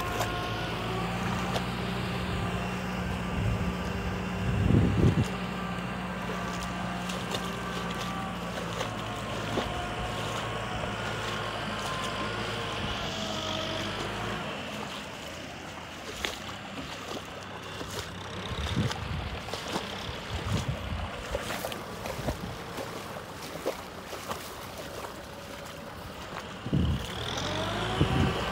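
Kubota M6040 SU tractor's four-cylinder diesel engine running steadily under load as it drags an implement through a flooded rice paddy, its tone wavering slightly and growing fainter about halfway through. Gusts of wind buffet the microphone in the second half.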